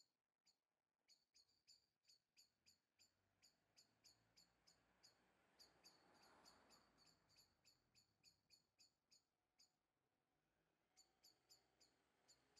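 Near silence, with very faint high-pitched ticks several times a second.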